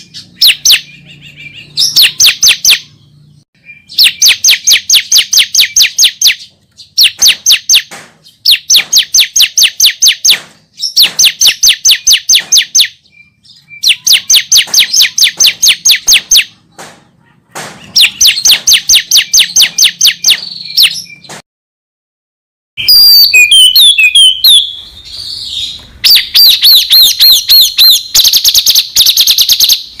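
Songbird song: fast, evenly repeated high notes in bouts of about two seconds, separated by short pauses. After a brief silent break about three-quarters through, a more varied warbling song follows, then more rapid repeated notes.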